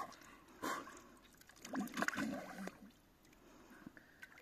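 Water splashing and gurgling in an ice hole as a bather ducks his head under, with a short splash a little under a second in, then low gurgles.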